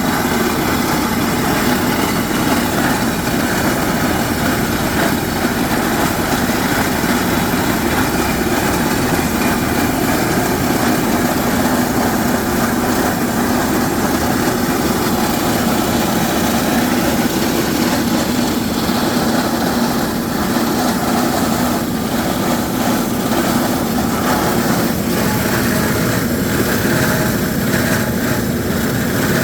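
Hydraulic rock drilling rig running steadily, its engine and drill making a continuous loud machine noise.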